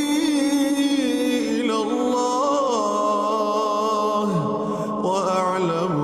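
A single voice chanting a melodic Quranic recitation in Arabic, holding long notes with wavering ornaments and sliding to a lower pitch about four seconds in.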